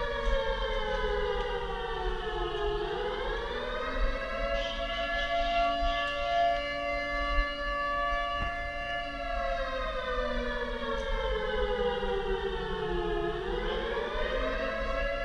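A siren wailing in slow cycles: its pitch falls over about three seconds, swings back up and holds steady for several seconds, then falls again and starts rising near the end.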